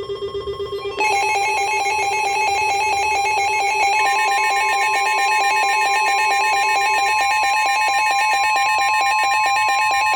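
Emergency alert tones: a rapidly warbling, ringing electronic alert tone that gets louder about a second in. About four seconds in it is joined by a steady single tone, NOAA Weather Radio's 1050 Hz warning alarm tone, signalling an incoming warning.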